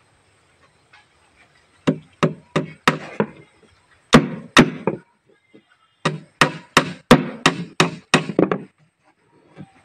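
Hammer blows on plywood in three runs: five quick strikes, a pause, two more, then about eight in a row, roughly three a second.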